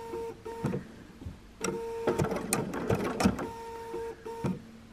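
Sewing machine sewing a blanket stitch slowly in short runs, its motor hum and needle clicks stopping for a moment about a second in and again near the end, where the fabric is turned between stitches around a tight curve.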